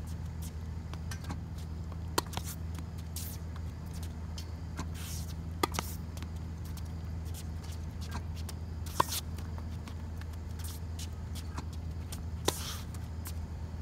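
Tennis ball struck by a racket on volleys: sharp pocks about every three to four seconds, five in all, two of them close together. A steady low hum runs underneath.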